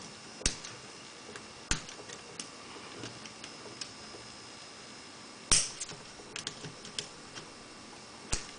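Plastic fischertechnik parts clicking as clamps are pressed and snapped into place by hand. There are a few sharp clicks, the loudest about five and a half seconds in, with lighter ticks between them.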